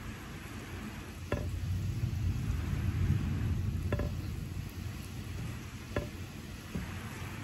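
Steady rain falling, with a low rumble of distant thunder that swells about a second in and dies away over the next few seconds. A few sharp ticks of drops stand out, three times.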